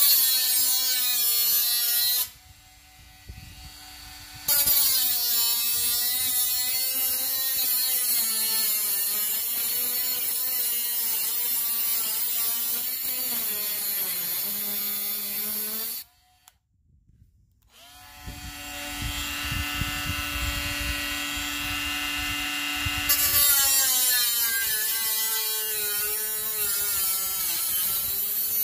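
Bosch GWS 12V-76 cordless 12 V mini angle grinder running at high speed, its pitch dipping and wavering as it is loaded. It stops for about two seconds past the middle, starts again with a steady pitch, then wavers under load again near the end.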